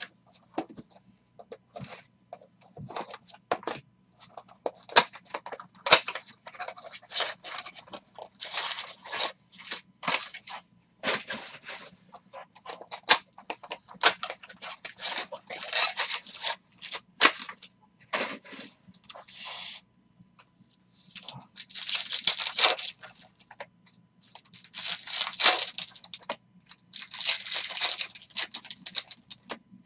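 Crackling plastic shrink-wrap being torn off a 2021 Bowman's Best trading card box, then card pack wrappers ripped open and crinkled in hand, in a run of short crackles and several longer tearing rips near the end.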